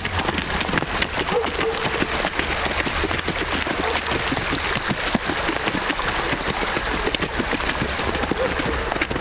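A shallow stream running over stones, a steady dense crackling babble of water.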